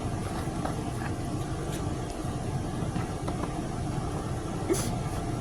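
A steady low background rumble, like a motor or machine running, with a few faint clicks of plastic craft-kit pieces being handled.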